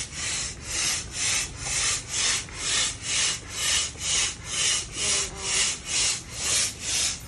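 Manual air pump worked in steady strokes, about two a second, each stroke a short rush of hissing air, as an inflatable paddling pool is pumped up.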